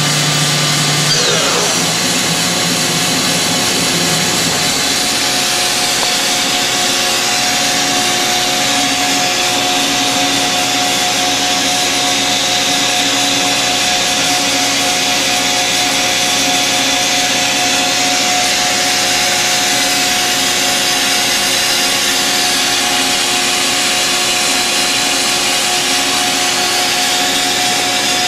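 Makino A-55 horizontal machining center's spindle, just run to 10,000 RPM while cold, spinning down with a falling whine over the first few seconds. After that the machine's steady running noise continues: an even hiss with a few constant tones.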